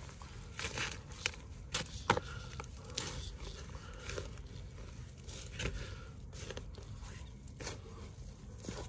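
Gloved hands scraping and digging through loose garden soil mixed with dry twigs and stems, making irregular scrapes, crackles and soft crunches. The sharpest crack comes about two seconds in.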